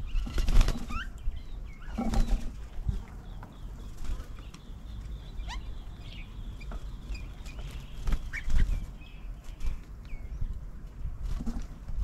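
Mynas and spotted doves flapping their wings as they land on and take off from a bird table, in a few short bursts, over a background of short high bird chirps.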